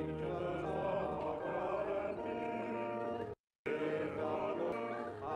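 Church congregation singing a hymn together, men's voices prominent with long held notes, heard through a video call. The sound cuts out completely for a moment about three and a half seconds in.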